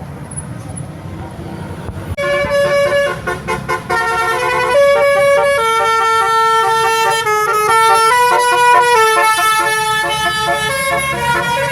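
Bus telolet horn of the basuri kind playing a tune: a rapid run of loud, stepped multi-tone horn notes that begins about two seconds in, over the low rumble of the bus engine and traffic.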